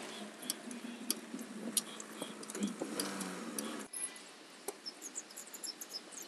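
Light scattered clicks and clinks of metal car parts being handled by hand in an engine bay, over a low steady hum; the sound drops abruptly about four seconds in, leaving fainter ticks.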